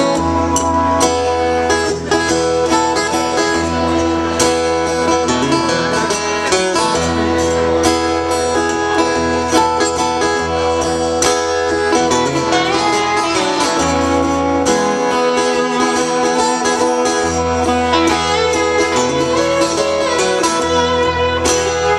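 Instrumental introduction to a slow country song played live on guitar and lap steel guitar, the lap steel sliding between sustained notes over a steady low bass.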